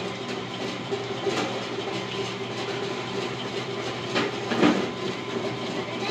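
Steady low mechanical hum from an unseen machine, with a few short knocks and rustles, the loudest a little before five seconds in.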